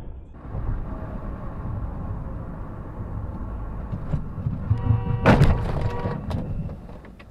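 Road and engine rumble heard from inside a car. About five seconds in, a car horn sounds for about a second and a half, with a sharp thump in the middle, the loudest moment.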